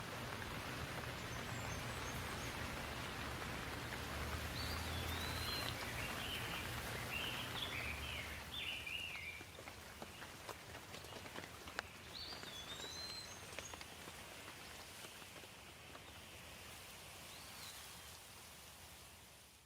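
Steady rain falling, an even hiss with scattered drips and taps. Birds chirp over it in short calls, a cluster about four to nine seconds in and a few more later, and the rain fades down near the end.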